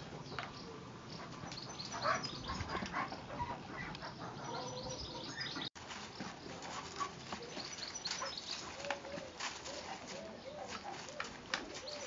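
Puppies playing with a rubber clog, chewing and tugging at it: many short clicks and scuffs, with short puppy vocal sounds in between.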